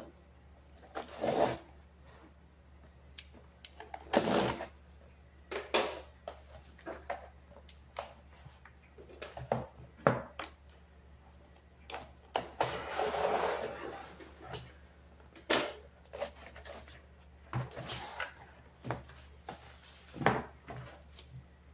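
A cardboard shipping box being opened with a box cutter, giving scattered knocks, clicks and scraping rustles of cardboard, with a longer rustle of about two seconds roughly twelve seconds in. Near the end comes the crinkle of plastic bubble wrap as the packed keyboard is pulled out.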